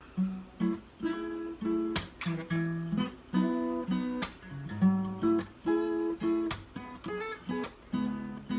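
Jasmine acoustic guitar, capoed, played as strummed chords and picked notes with sharp attacks and a steady rhythm.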